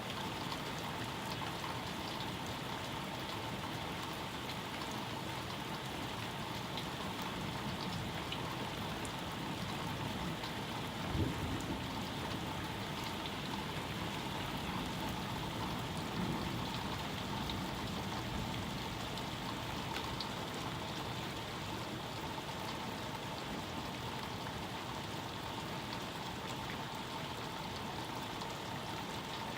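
Steady rain falling and pattering on surfaces during a thunderstorm. A short low thump comes about eleven seconds in, and a softer low swell about five seconds later.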